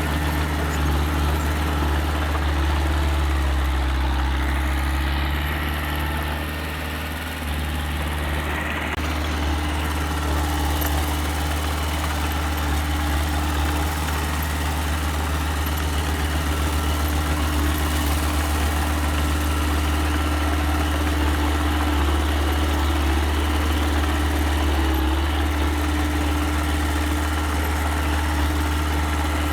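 Engine of a small earthmoving machine running steadily with a deep hum. Its note drops and softens for a few seconds, about five to seven seconds in, then picks up again.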